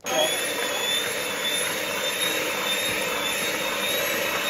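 Electric hand mixer switched on right at the start and running steadily in a bowl of flour and seeds, a steady motor noise with a high whine.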